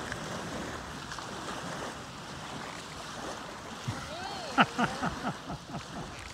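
Steady wind and surf noise on the beach. About four seconds in comes a short cluster of sharp knocks mixed with brief tones sliding up and down in pitch.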